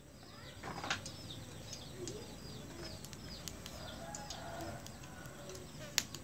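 Hot cooking oil sizzling steadily in a frying pan, with a few sharp crackles. Quick high chirps of small birds repeat faintly over it, about three a second.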